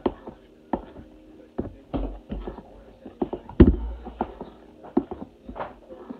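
A metal utensil stirring pancake batter in a plastic mixing bowl, clacking and knocking against the bowl's sides in irregular strokes, one or two a second, with the loudest knock a little past halfway.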